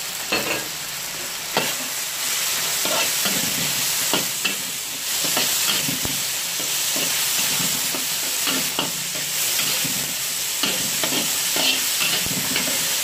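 Stir-frying in a wok: chicken and dried tofu sizzling in hot oil while a metal spatula scrapes and knocks against the wok again and again.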